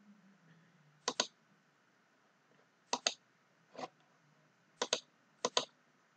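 Computer mouse button clicks, about five in all, most of them in quick pairs like double-clicks.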